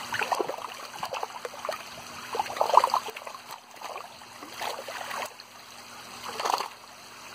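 Pond water splashing and sloshing around a hand net holding tilapia, as a hand and the netted fish move in it: irregular splashes, loudest a little under three seconds in and again about six and a half seconds in.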